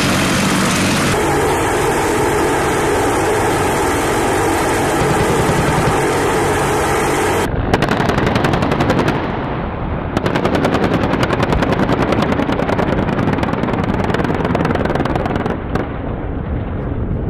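A loud steady din with several held tones for about seven seconds, then rapid automatic gunfire, many shots a second, in two long bursts that stop a couple of seconds before the end.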